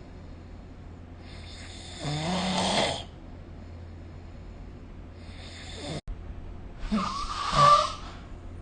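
A sleeping person snoring: two loud snores about five seconds apart, with a fainter breath between them. The second snore, near the end, is the loudest.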